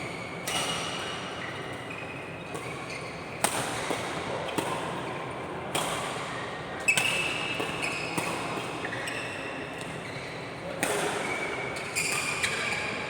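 A doubles rally in a racket game: sharp racket hits about every second or so, some followed by short high squeaks, echoing in a large hall.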